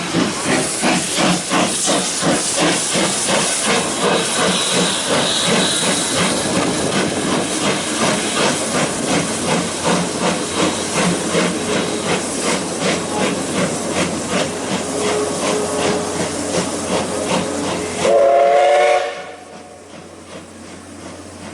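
C58 steam locomotive working hard up a grade: loud, rapid, rhythmic exhaust chuffs with steam hiss. Near the end it gives one short, loud whistle blast, and then the sound drops away as it passes.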